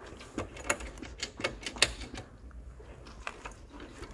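Irregular clicks and rattles over a low rumble, heard from a handlebar-mounted camera on a moving motorcycle.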